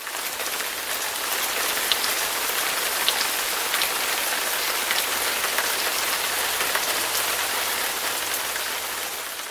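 Steady rain-like hiss with faint scattered ticks, fading in at the start and fading out near the end.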